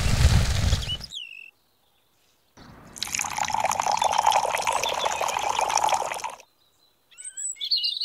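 Water poured from a small cup into a tin can holding cement powder: a steady splashing trickle lasting about four seconds. Before it, a noisy stretch cuts off about a second in, and a few short chirps come near the end.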